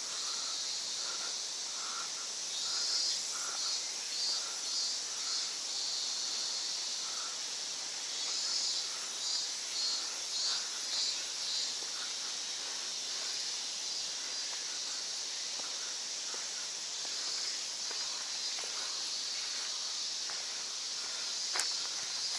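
Steady, high-pitched chorus of summer insects, with pulsing calls that swell and fade and a repeating short chirp over the first few seconds. A single sharp click near the end.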